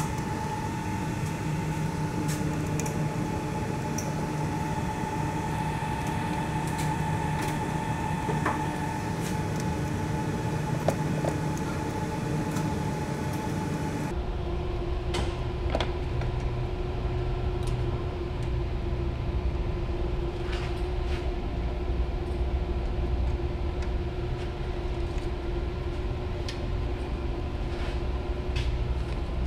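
Steady machinery hum with several steady tones in it, under scattered small clicks of a screwdriver and wire terminals being worked on a terminal block. About halfway through, the hum changes abruptly to a deeper rumble with a different tone.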